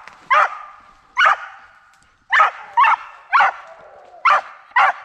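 A mountain feist barking treed: about seven sharp, high barks at an uneven pace, each trailing off in an echo. It is the sign that the dog is holding an animal up a tree, which the hunter takes for a possum or a raccoon.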